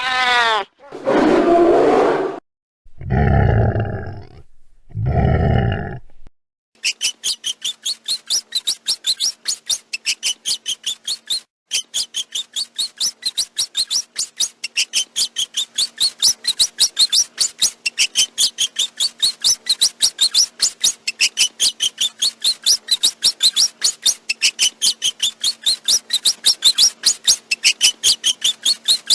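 Rat sound effect: four loud, harsh calls in the first six seconds, then a long, unbroken run of rapid, high-pitched squeaks, several a second.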